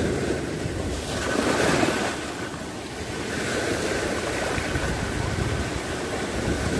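Sea surf washing in over rocks and sand: a steady rush of water that swells and eases.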